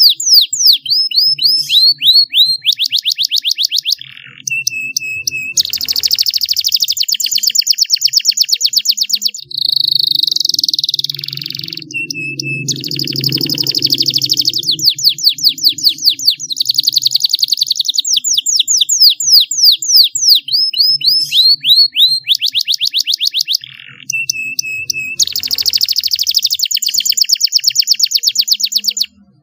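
Domestic canary singing a long, fast song of rapid trills, rolls of quickly repeated high notes with some sliding up or down, broken by a few short pauses. It stops just before the end.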